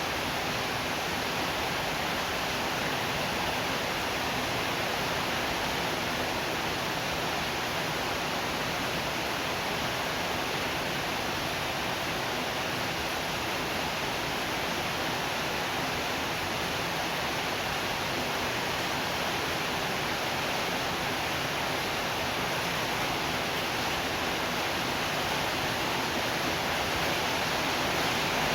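Steady rain falling, an even, unbroken hiss with no thunder or single drops standing out.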